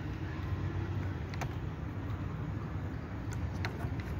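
A few faint, sharp clicks of fingers handling a laptop's metal screen hinge and plastic frame, over a steady low rumble.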